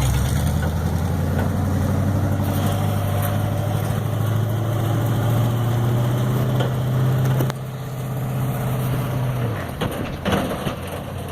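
Vortec 350 small-block V8 of a 1974 Chevy truck running, its pitch creeping slowly upward. The sound drops in level about seven seconds in and fades out a couple of seconds later, followed by a few irregular crunching knocks near the end.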